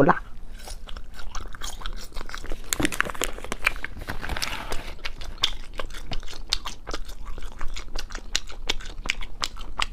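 Close-miked chewing of spicy strips (latiao), a run of small wet mouth clicks and bites. Plastic packaging rustles briefly about four seconds in.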